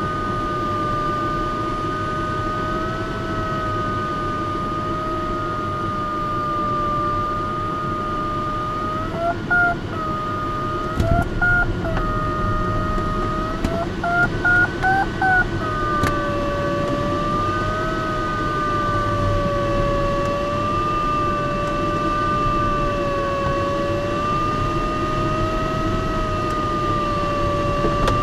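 Glider's audio variometer giving a steady tone that slowly wavers in pitch, breaking twice near the middle into short, higher beeps that signal rising air, over steady airflow noise in the cockpit.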